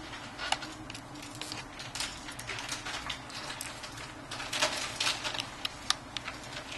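Small metal repair tools clicking and tapping on the opened iPhone 6 while its tiny internal screws are taken out: a dozen or so light, irregular clicks, a few of them sharper than the rest.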